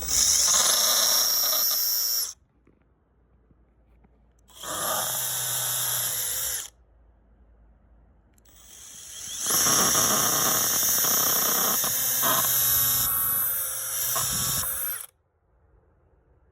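Power drill pre-drilling screw holes into wooden bed-frame side pieces, in three runs: two of about two seconds each, then a longer one of about six seconds that builds up at its start. Each run is a steady high-pitched whine.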